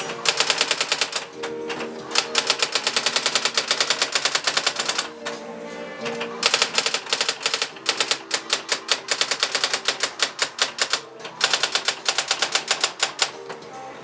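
Brother SX-4000 electronic daisywheel typewriter printing text by itself. Rapid strikes come at about ten a second in runs of one to two seconds, with short pauses between the runs. Background music plays underneath.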